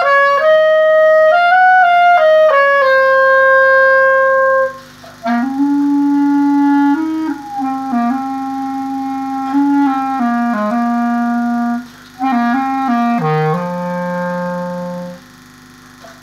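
Solo clarinet playing a slow melody in three phrases with short breaths between, the later phrases in its low register. It ends on a long held low note that stops about fifteen seconds in.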